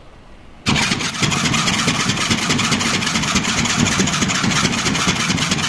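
Homemade syringe air pump driven by a small DC gear motor, switched on about a second in and then running steadily with a loud, fast mechanical rattle.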